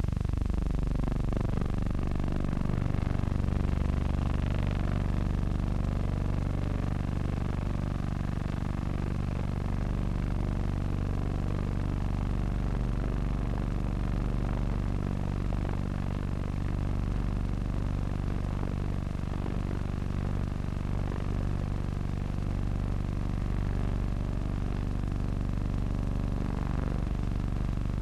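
Aircraft engines droning steadily. The pitch drops steeply in the first couple of seconds as the plane passes overhead, then holds level.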